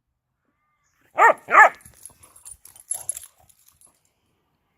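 Whippet barking twice in quick succession, short sharp barks, followed by faint clicks and rustling.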